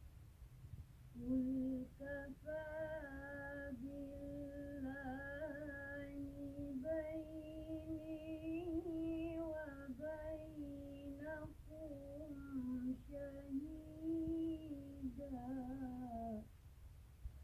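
A child chanting Quran recitation in the melodic tilawah style: one long ornamented phrase of sustained, wavering notes, starting about a second in and ending near the end.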